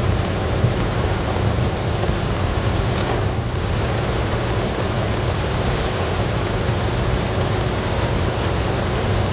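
Heavy rain falling steadily, a dense, even hiss with no let-up, with one brief sharp tick about three seconds in.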